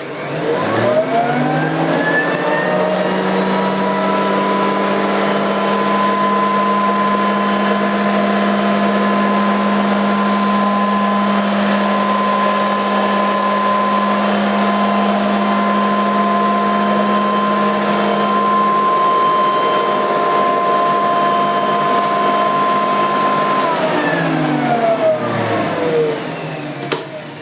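Nilco 271 commercial upright vacuum cleaner switched on, its motor whining up to full speed over about two seconds and then running steadily. Near the end it is switched off and winds down, the whine falling in pitch.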